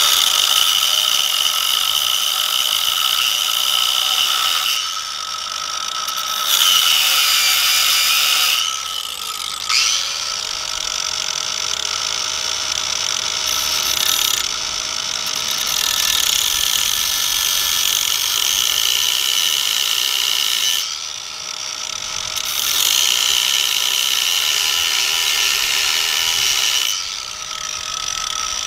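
Cordless angle grinder running at a steady high whine, its disc grinding into the bike's metal motor mount. The whine and level dip several times as the disc eases off and bites again.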